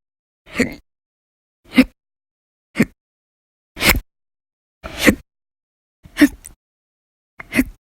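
A woman hiccuping over and over, seven short, sharp hiccups about one a second, with dead silence between them.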